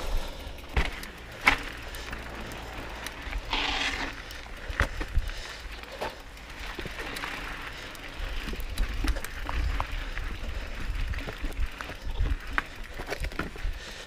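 Mountain bike rolling over a rocky dirt trail: irregular clattering and knocks from the bike and the stones, over a steady low rumble.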